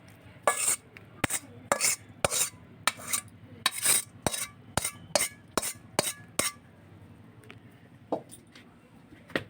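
Metal spoon knocking and scraping against a cooking pan, about two strikes a second for roughly six seconds and then only a few, as fried egg and vegetables are tipped out of the pan.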